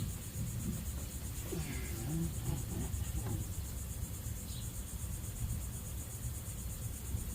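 Steady high-pitched insect chorus, a pulsing chirr, over a low continuous rumble, with a few faint short sounds between about one and a half and three and a half seconds in.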